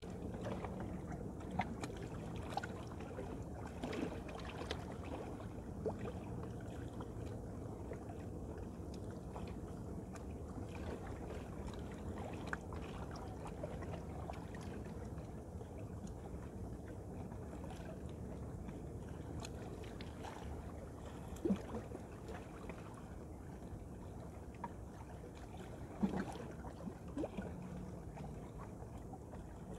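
Choppy river water lapping and sloshing over a steady low rumble, with scattered small splashes or knocks, two louder ones in the second half.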